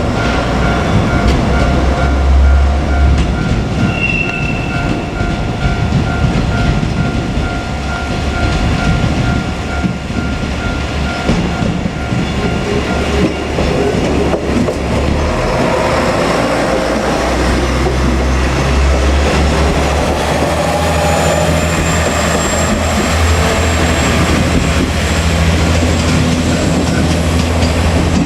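JR Kyushu KiHa 47 two-car diesel railcar running past at a level crossing: diesel engines rumbling and wheels clicking over the rail joints. A level-crossing bell rings in even, repeated dings through roughly the first half, then stops.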